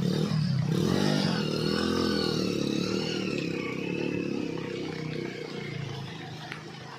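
A motor vehicle's engine running as it passes, its pitch rising and falling, then fading away over the last few seconds.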